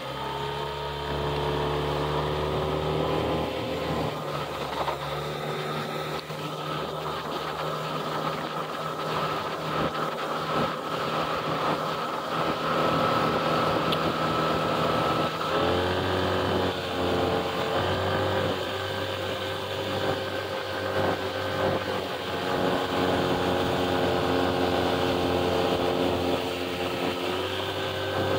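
Mercury 8 hp outboard motor running steadily under way, its note rising as it is throttled up at the start. About halfway through the engine note drops and then settles at a new steady pitch.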